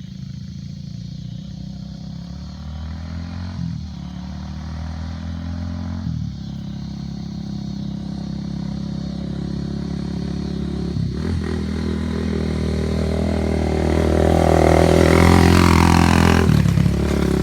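Honda ATC350X's four-stroke single-cylinder engine running under way, its note breaking briefly several times and growing steadily louder toward the end.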